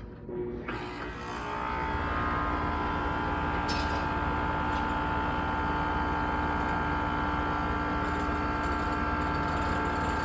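An air-conditioning condensing unit's compressor and condenser fan start when the contactor is pushed in by hand. The sound builds over the first couple of seconds, then runs steadily with a low hum and a few steady whining tones. The unit is pumping the system down, drawing the refrigerant into the outdoor unit against a closed service valve.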